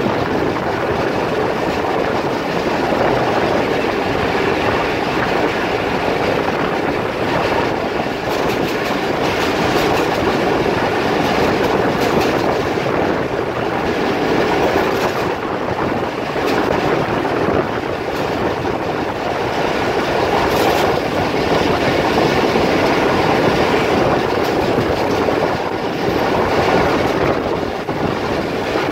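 Passenger train running at speed, heard from a coach window: a steady rumble of wheels on the rails with faint clickety-clack over the rail joints.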